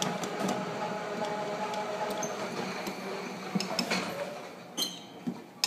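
Golf cart driving along with a steady motor hum that dies away about four seconds in, followed by a few clicks and knocks.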